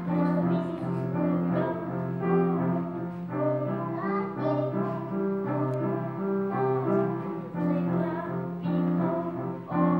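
Upright piano playing a simple accompaniment of held chords that change about once a second, with a singing voice wavering over it.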